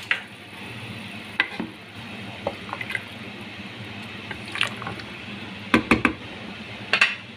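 Pot of water with peas and potatoes at a full boil as soaked rice is stirred in with a wooden spoon: a steady bubbling and sloshing, with several sharp knocks of the spoon against the pot, the loudest a few near the end.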